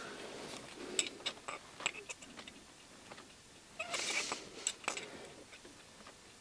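Faint clicks and light metal taps of a vernier caliper being handled against a metal tie rod end puller, with a short scrape of metal sliding on metal about four seconds in.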